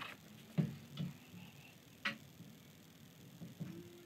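Light, scattered clicks and knocks, about five spread over a few seconds, as clamps and wooden chair parts are handled during a glue-up.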